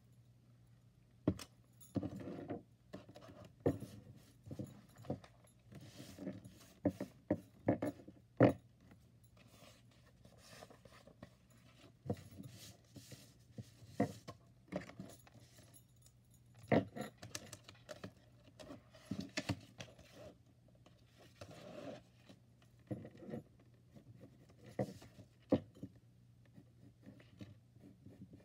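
Hands handling paper and craft pieces on a wooden desk: irregular taps and knocks, paper sliding, and the light jingle of metal bangles on the wrist.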